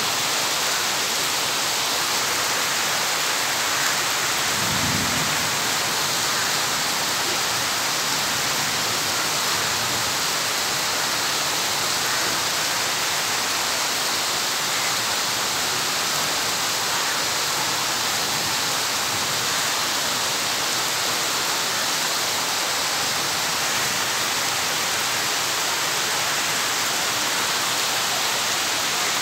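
Steady rainfall, an even continuous hiss of drops. A brief low rumble comes about five seconds in.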